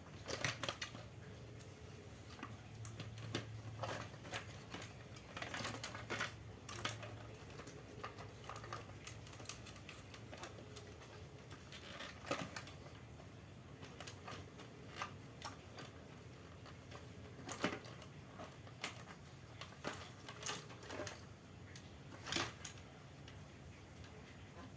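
Irregular clicks and taps of small parts and tools being handled while working on an electric fan's motor, with a faint low hum that fades after about seven seconds.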